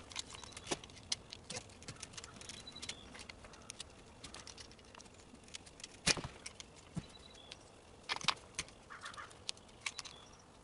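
Scattered light clicks and taps of a screen spline roller pressing the rubber spline and duct-taped screen edge back into the screen frame's channel, with one sharper knock about six seconds in.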